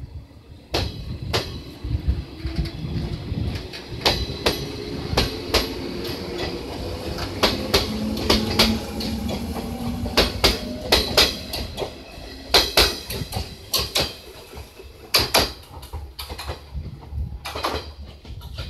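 A JR West 115-series electric train running slowly past, its wheels clacking over rail joints in uneven clusters over a low rumble, with a faint motor whine creeping up in pitch in the middle. The clacks thin out near the end as the train draws away.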